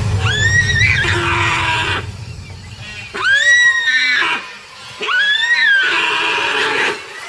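A deer screaming in distress as a crocodile holds it at the water's edge: three loud, high cries that rise and then fall, the first right at the start, then about three seconds in and about five seconds in.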